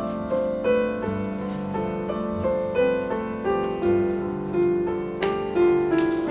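Background music: a slow, gentle melody played on piano, single notes moving over held lower notes.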